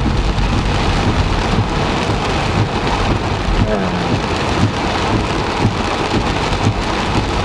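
Heavy rain falling on a car, heard from inside: a dense, steady patter of drops with a low steady rumble underneath.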